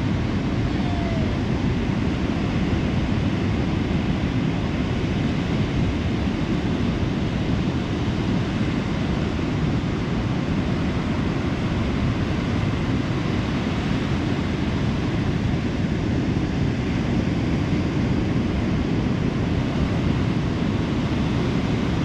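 Ocean surf breaking on a sandy beach: a steady, deep rushing of waves that holds an even level throughout.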